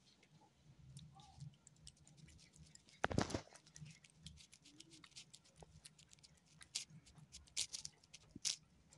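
Sphynx cat licking creamy paste treat from a squeeze tube: a rapid run of small wet clicks and smacks from its tongue and mouth. A heavier thump comes about three seconds in.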